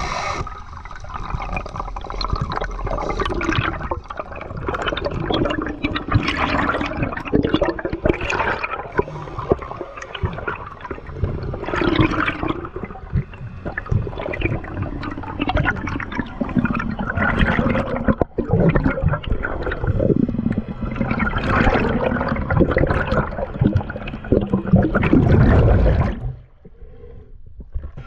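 Sea water sloshing and gurgling close to the microphone in uneven surges, then dropping off suddenly near the end.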